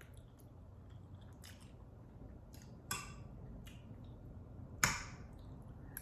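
Close-up eating sounds: a few short clicks and crackles of a person eating takeout food, the loudest about five seconds in.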